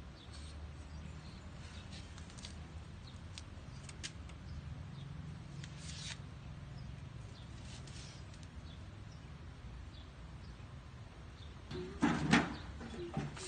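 Paintbrushes working over steel window grills: faint, scattered taps and scrapes over a low, steady background hum, with a louder brief clatter about twelve seconds in.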